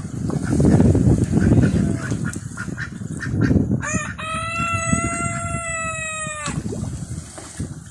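Domestic ducks splashing and dabbling at the surface of a pond. About four seconds in, one long farmyard-bird call glides up and then holds steady for about two and a half seconds.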